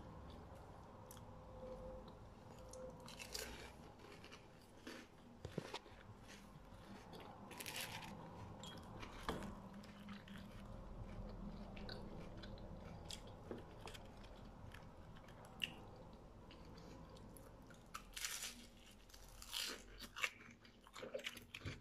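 Quiet, irregular crunching of crisp fried yeast dough, with the crunches coming closer together near the end.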